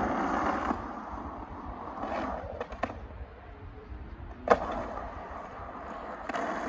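Skateboard wheels rolling over concrete, a rough rush that comes and goes, with a few light clicks and one sharp clack about four and a half seconds in.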